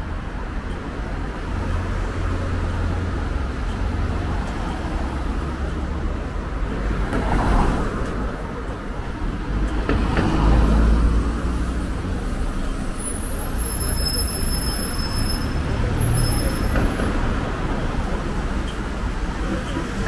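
City street traffic: a steady rumble of cars and a bus passing close, swelling twice about a third and half of the way in. A high thin squeal comes in for a few seconds past the middle.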